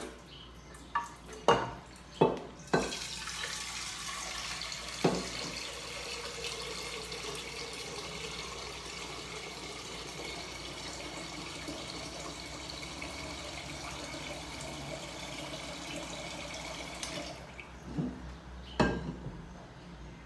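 Kitchen tap running into a metal pressure-cooker pot, filling it with water; the filling note rises slightly as the pot fills. A few knocks come before the tap is opened, and the tap shuts off near the end, followed by a couple more knocks.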